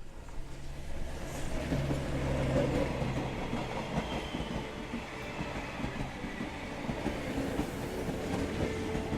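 Passenger train running with a steady rumble, and a thin steady whine coming in near the end.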